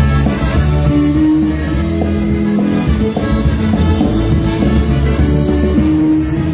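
Live polka band playing a number, with sustained melody notes over a strong bass and a steady beat.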